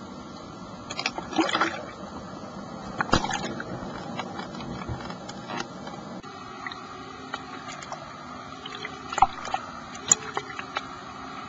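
Underwater noise picked up through a camera housing, with several short bursts of bubbling and crackle from a scuba diver's exhaled breath.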